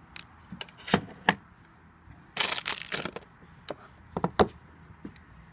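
Handling noise as a wifi video doorbell unit is handled: scattered sharp clicks and knocks, with a short crackling, rustling burst a little past halfway.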